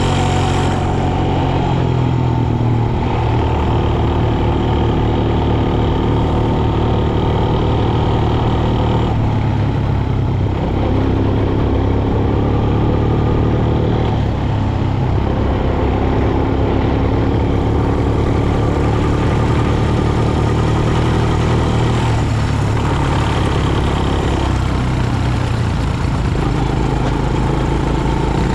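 Quad bike engine running steadily under way, its pitch rising and falling a little with the throttle and easing off briefly several times.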